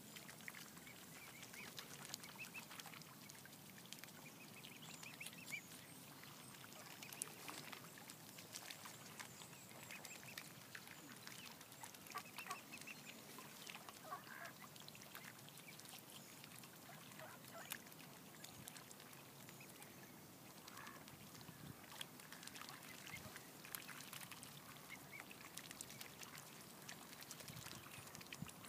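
Faint sounds of mute swans, cygnets and mallards feeding at the water's surface on floating greens: short high calls now and then among many small clicks and splashes.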